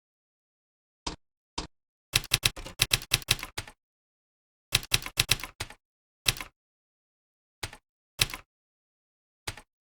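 Computer keyboard typing in bursts: two single keystrokes, then a quick run of keys, another run, and a few scattered keystrokes near the end.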